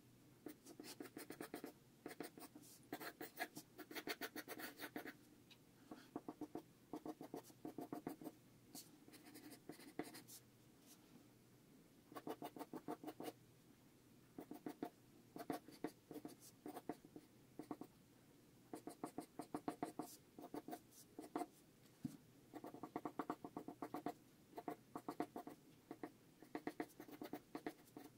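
Pencil sketching on paper: clusters of quick, short scratching strokes, broken by brief pauses.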